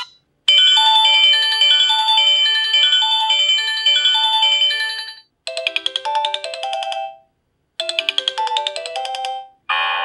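Sony Ericsson W100 Spiro's built-in polyphonic ringtones played one after another. A short electronic melody runs for about five seconds and cuts off. Two brief tunes of under two seconds each follow, each stopping suddenly, and a fuller tune starts just before the end.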